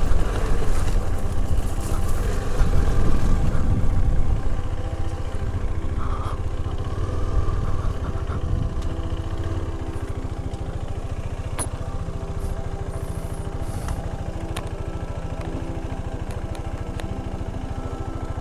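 A small motor running steadily with a constant pitch, louder and rougher for the first few seconds before settling to an even level.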